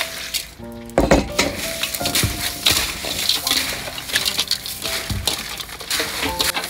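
Crushed ice clinking and water sloshing in a metal bowl as fresh green peppercorn clusters are turned through it by hand, the busy clinking starting about a second in, over steady background music.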